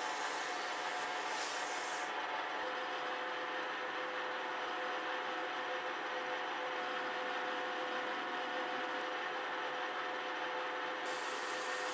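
Metal lathe running steadily with an abrasive strip held against the spinning hammer-head blank, a sanding hiss for the first two seconds. The hiss then drops away while the lathe runs on with a steady tone, and comes back about eleven seconds in.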